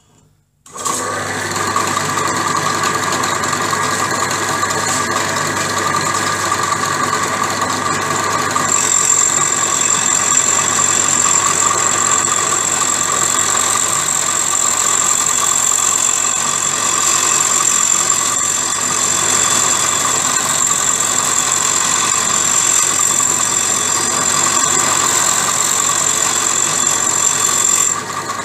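Bench drill press switching on about a second in and running steadily, its spinning cutter machining the dogs of a gearbox gear to back-cut them. A steady high whine joins in about nine seconds in.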